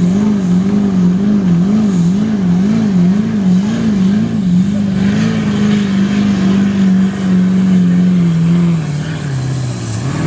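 GMC Sierra pickup's Duramax diesel V8 at full throttle pulling a sled. The engine runs at a high pitch that wavers rhythmically up and down about twice a second for the first few seconds, then holds steady, and near the end sags lower before climbing again.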